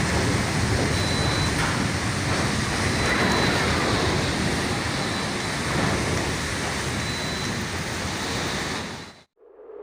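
Storm wind blowing hard, a loud steady rushing noise with wind buffeting the microphone; it cuts off suddenly near the end.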